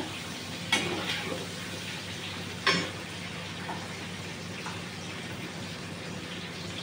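Parwal (pointed gourd) pieces sizzling steadily as they fry in oil in a kadhai. Two sharp metal clanks of the spoon against the pan, about a second in and again near three seconds in.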